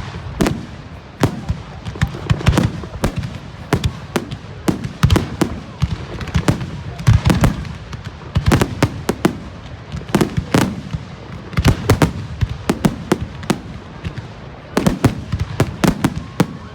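Fireworks going off in rapid, irregular bangs and cracks, many close together, with a dense cluster of explosions near the end.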